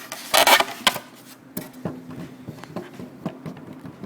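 A loud brief scrape, then a string of light clicks and taps of plastic as a laptop keyboard is worked loose from its released latches.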